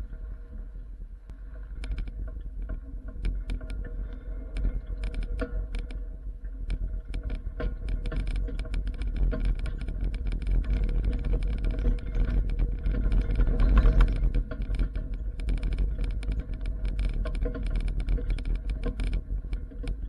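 Pickup truck driving slowly over a rough dirt yard towing an empty flatbed car trailer: a steady low rumble overlaid with constant quick rattling and clanking, loudest about two-thirds of the way through.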